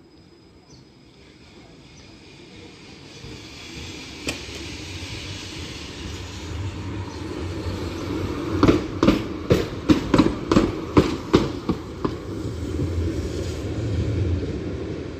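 Ust-Katav 71-623-02 tram approaching and passing close by, its running noise growing steadily louder. As it passes, its wheels knock over the rail joints in a quick run of about nine sharp clacks over some three seconds.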